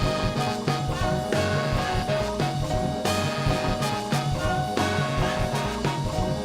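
Afrobeat band playing an instrumental passage: a driving bass and drum groove under sustained horn lines, with no singing.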